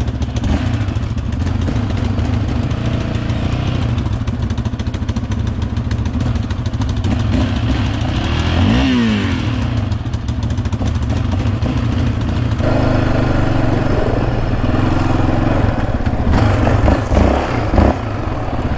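Yamaha Raptor 700R ATV's single-cylinder engine, fitted with an aftermarket Monster exhaust, running and revving as the quad rides a dirt trail. A few knocks and some clatter near the end.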